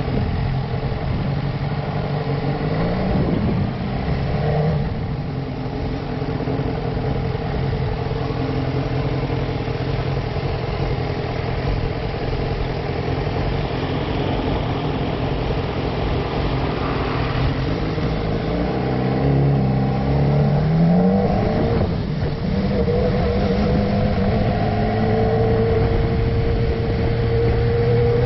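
Motorcycle engine running as the bike rides slowly through a village, rising in pitch as it accelerates about three seconds in and again about twenty seconds in, then running steadily.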